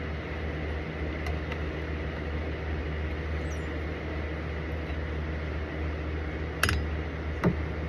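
Steady low engine drone of heavy road-resurfacing machinery, with two sharp metallic clicks near the end.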